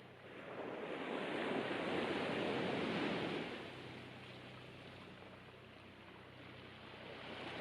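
Sea waves washing on the shore: one wave swells up about a second in and dies away after about three seconds, and the next begins to build near the end, with a faint steady low hum underneath.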